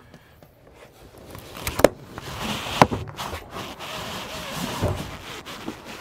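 An RV refrigerator being walked out of its wall cabinet: its metal body scrapes and rubs against the opening, with two sharp knocks about two and three seconds in.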